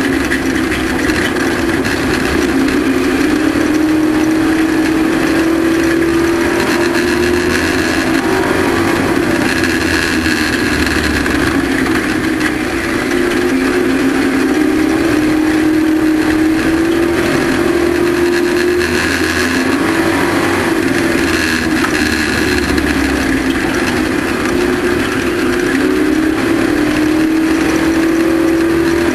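Race truck engine running at racing speed, its pitch climbing for several seconds as it accelerates, then dropping as it lifts, over and over, about every ten seconds, with steady wind and road noise underneath.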